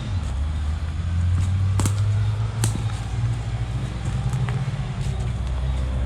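Low, steady rumble of road traffic, with two sharp clicks about two and three seconds in.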